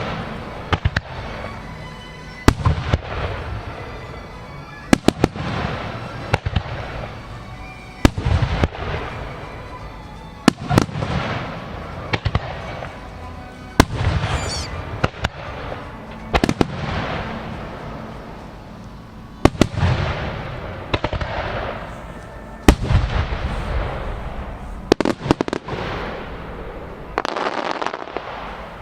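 Aerial fireworks shells bursting in repeated volleys, sharp bangs followed by crackling tails, over music played over loudspeakers for a melody fireworks display.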